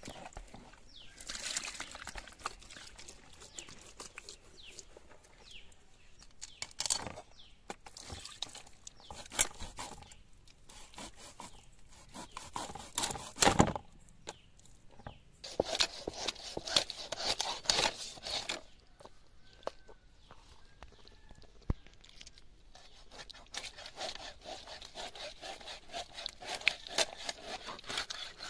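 Rohu fish being scaled and cut against an upright blade: irregular spells of scraping and rasping as the scales come off, with sharp clicks and knocks of the fish and blade against the tray and stone.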